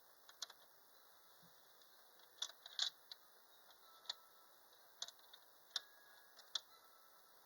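Faint, scattered small clicks and ticks from handling a sewing machine while undoing and redoing its threading, with a quick cluster about two and a half seconds in and single clicks after.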